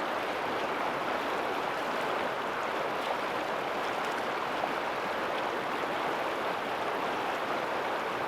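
Steady rushing of running water from a river or stream.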